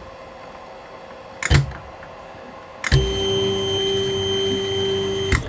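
A sharp click, then about a second and a half later another click as the electric motor driving the drill press's knee starts up, running with a steady hum and a high whine for about two and a half seconds before it stops with a click.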